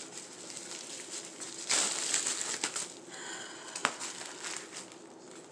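Plastic bubble mailer crinkling and rustling as it is handled and opened, loudest about two seconds in. One sharp tap comes near the end of the rustling.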